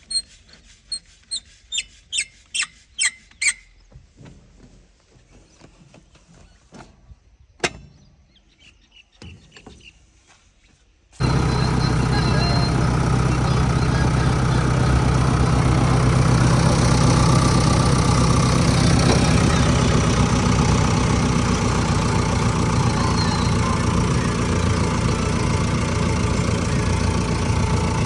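A run of short, sharp rhythmic strokes, about two a second, for the first few seconds. About eleven seconds in, a heavy machine's diesel engine starts being heard abruptly and then runs loud and steady.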